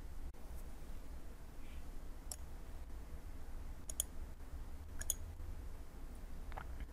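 A few sharp computer mouse clicks, a second or more apart, over a steady low electrical hum.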